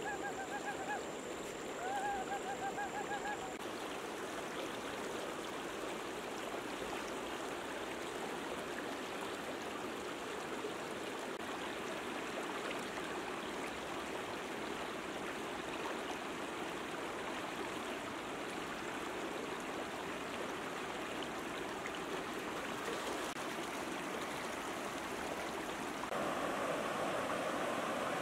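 River water rushing steadily over rocks, stepping up louder about two seconds before the end where the water runs in rapids. Two short wavering calls sound in the first few seconds.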